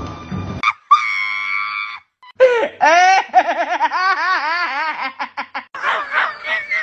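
A person's high-pitched laughter, recorded as a voice message: a held squeal, then a long run of rapid rising-and-falling whoops, about three or four a second, with short breaks.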